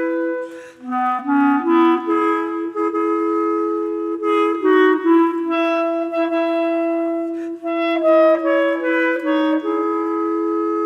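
Clarinet quartet of three soprano clarinets and a bass clarinet playing a slow piece in harmony, moving in held chords. There is a brief break about a second in, and the upper melody steps down near the end.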